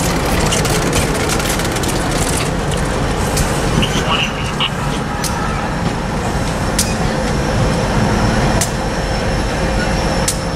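Passenger train rolling slowly past at close range: a steady rumble of wheels on rail, broken by sharp clicks every second or two.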